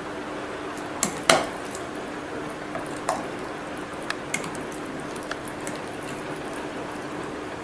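A metal spoon stirring thick yogurt-soaked oats and chopped apple in a glass jar, with several sharp clinks of the spoon against the glass, the loudest just over a second in.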